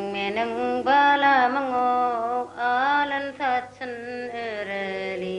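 A solo voice singing a wavering, ornamented melody in short phrases over a steady low drone.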